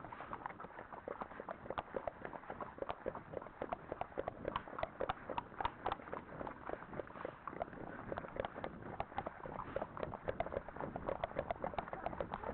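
Hooves of several horses clip-clopping along a dirt forest track, a dense, irregular patter of hoofbeats several times a second.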